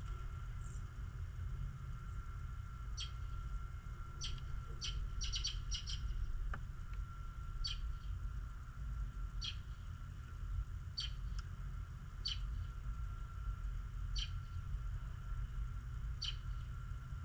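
Songbirds chirping: short high chirps every second or two, with a quick run of several about five seconds in. A steady low rumble runs underneath.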